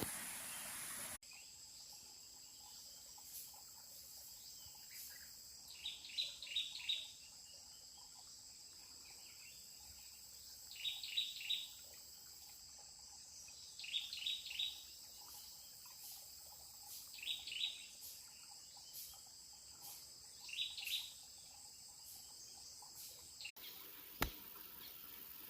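A bird repeats a short burst of quick chirping notes every three to four seconds, over a steady high-pitched insect drone. A flowing stream's rushing noise is heard briefly at the start and again near the end.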